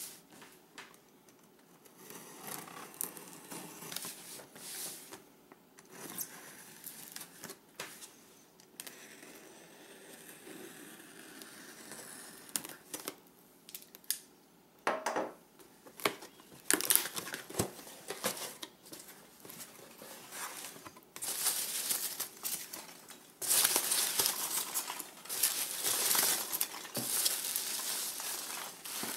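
A parcel being unpacked by hand: packing material crinkling and tearing, with scattered clicks and knocks of the box. The crinkling grows louder and busier for the last several seconds.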